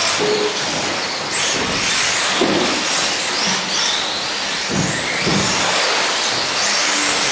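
Several radio-controlled off-road racing cars running around a carpet track, their motors whining up and down in pitch as they speed up and slow down.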